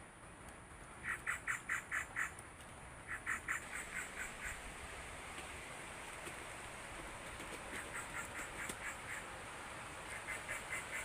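An animal giving short runs of rapid, evenly spaced calls, each run of about five to seven notes, four runs in all, over a steady high hiss.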